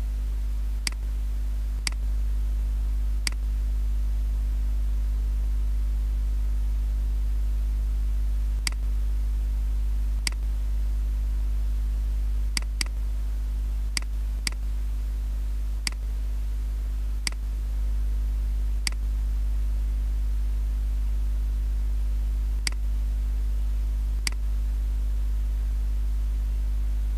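Computer mouse clicking, about fourteen sharp single clicks at irregular intervals, over a steady low electrical hum.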